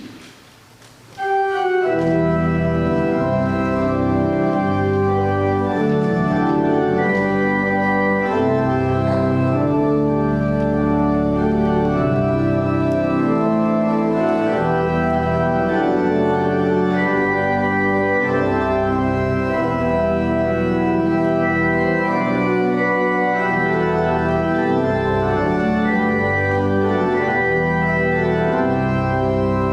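Church organ playing held chords, coming in about a second in.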